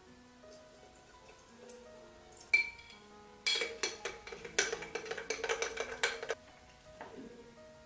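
A metal spoon scraping and clinking against the inside of a glass jar as thick bread starter is stirred and scooped out, over soft background music. A single sharp clink comes about two and a half seconds in, then a run of quick scrapes and knocks for about three seconds.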